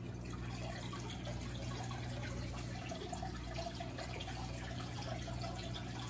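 Fluval 307 canister filter running with its flow control at about half, water running steadily from the outlet into the aquarium over a steady low hum.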